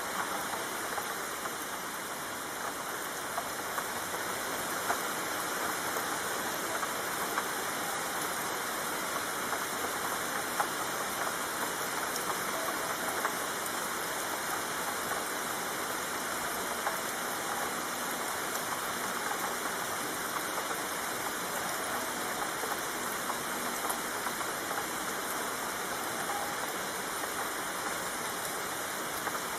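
Steady rainfall: an even hiss of rain with small, scattered ticks of individual drops.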